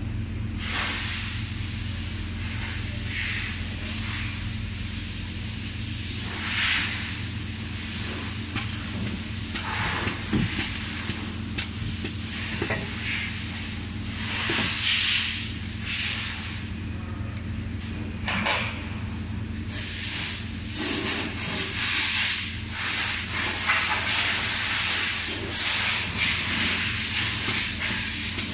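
Automated assembly machine running: a steady low hum and a high whine, with repeated short hisses of compressed air from its pneumatic valves and cylinders. Past the two-thirds mark the hisses and clicks come quickly and close together, and it gets louder.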